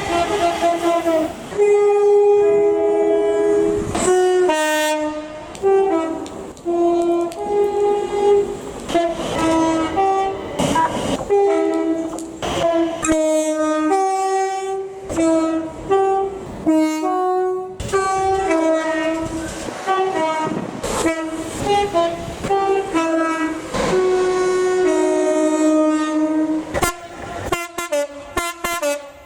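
Multi-tone train horn played as a tune: a long run of notes at several different pitches, one after another, some short and some held longer.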